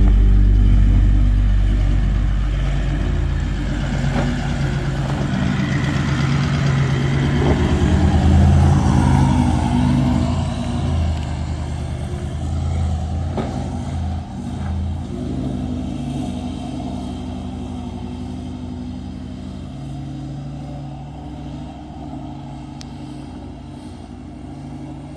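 Four-wheel-drive vehicle engine running as it crawls along a rough dirt track, growing gradually quieter toward the end.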